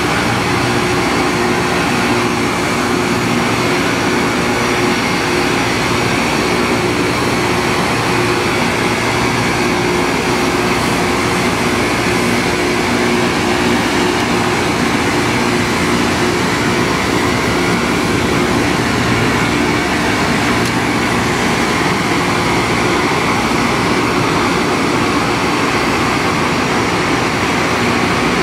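Loram rail grinder grinding the railhead: many motor-driven grinding stones on the rail, with the train's machinery, make a loud, steady, unbroken rushing din with a steady hum under it.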